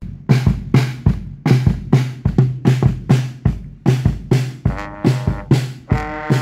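A brass band's marching drums, snare drums and a bass drum, play a steady driving beat. Trombones come in about four and a half seconds in.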